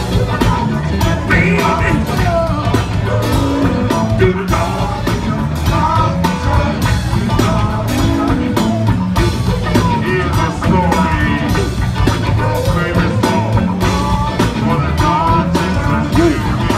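Live funk band playing a steady bass-heavy groove, with singers' voices over it.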